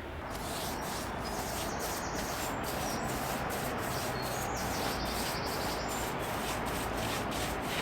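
Paintbrush rubbing back and forth over the cabin's wooden boards in repeated strokes as a coat of paint goes on. Birds chirp now and then in the background.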